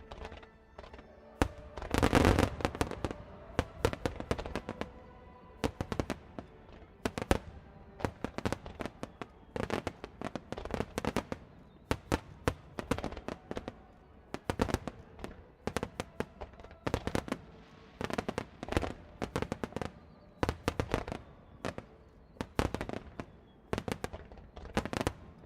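Aerial firework shells bursting in quick succession during a finale barrage, a dense cluster of loud bangs about two seconds in, then a steady run of bursts several a second.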